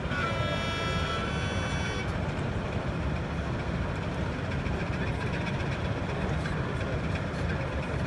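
Sound-fitted model diesel locomotive sounding a horn for about two seconds at the start, then a steady low rumble of engine sound and hall noise.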